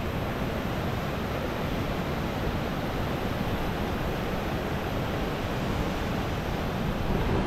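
Floodwater rushing through a dam outflow: a steady, unbroken rush of water.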